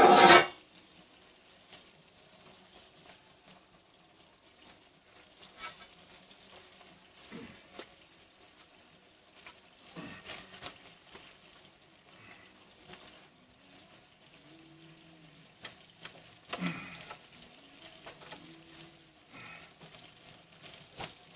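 Chicken pieces sizzling faintly in pans inside a wood-fired brick oven as they are turned and moved with a metal spatula, with scattered scrapes and clinks of metal on the pans. A loud clatter of the pans at the very start.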